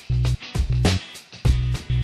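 Background funk music with a repeating bass line and drum hits.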